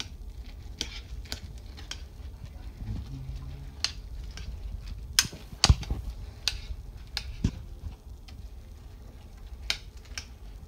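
Oats and protein shake being stirred in a glass baking dish: a soft mushing with irregular sharp clicks and knocks against the glass, the loudest of them about halfway through.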